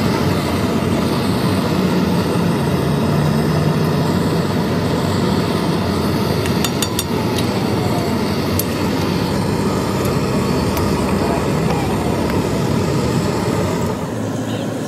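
Steady mechanical rumble with a low hum, like vehicle or engine noise, with a few sharp clicks about halfway through.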